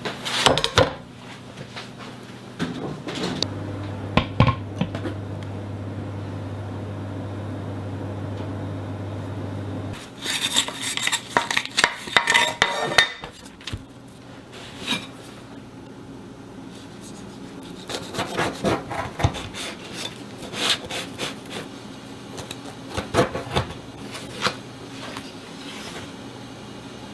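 Hands handling a baked tart in its fluted metal tart tin, with a wire rack, on a wooden board: scattered knocks, clinks and rubbing, busiest in two stretches, one a third of the way in and one past the middle. A steady low hum sounds for several seconds in the first part and then stops.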